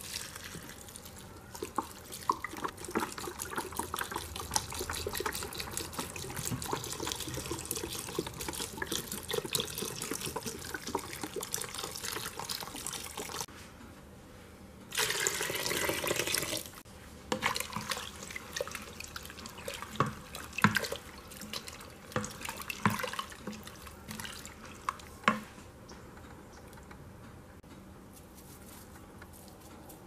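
Stock or water poured from above into a stainless steel Instant Pot inner pot full of vegetables, splashing steadily for about thirteen seconds. After a short break it comes in a second, louder pour. Then come scattered drips and a few light knocks.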